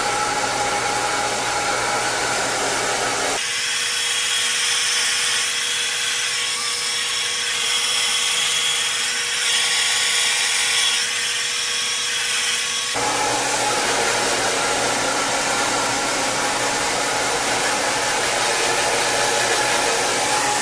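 Handheld blow dryer running steadily, rough-drying damp hair with a steady whooshing blow and a constant motor whine. For a stretch in the middle the sound turns thinner and brighter, losing its low end, then comes back fuller.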